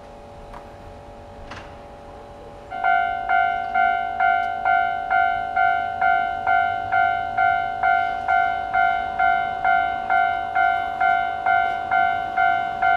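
Railway level-crossing warning bell starting up a few seconds in and ringing steadily, about two strikes a second: the crossing has activated for an approaching train.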